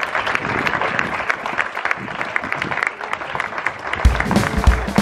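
Audience applauding, a dense patter of many hands clapping. About four seconds in, the applause cuts off and background music with a drum-kit beat comes in.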